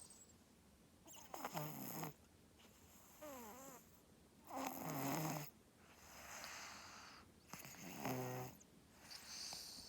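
A two-year-old girl snoring in her sleep: a rhythmic series of raspy snores with a buzzing rattle, about one every two to three seconds, with breathy outbreaths between them.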